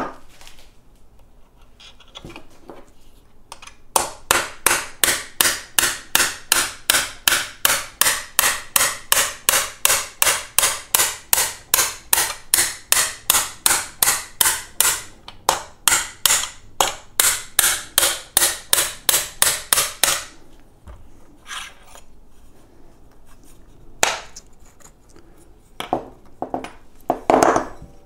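Hammer striking a punch to drive out an electric unicycle's tight steel pedal pin. Quick metal-on-metal blows come at about three a second, starting about four seconds in and stopping about twenty seconds in, followed by a few scattered knocks near the end.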